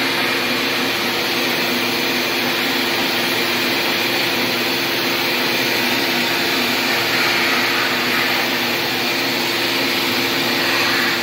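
Vacuum cleaner running steadily with a constant hum, its brush attachment being worked over a tiled backsplash to suck the scraped grout dust out of the joints.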